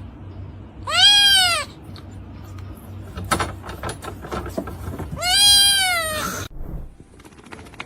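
An animal giving two long, high calls, each rising then falling in pitch, about a second in and again about five seconds in, with a few light knocks between them.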